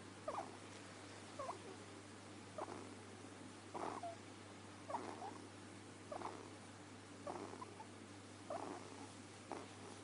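A sleeping ferret snoring: a short, squeaky whistle with each breath, about one a second.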